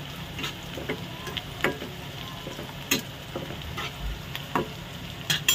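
Sliced onions, fried soft, sizzling in oil in a nonstick wok while a metal spatula stirs them. The spatula makes irregular scrapes and taps against the pan, the loudest about halfway through and near the end.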